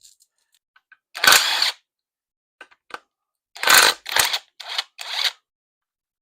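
A power tool run in short bursts: one burst about a second in, then four quick bursts near the end.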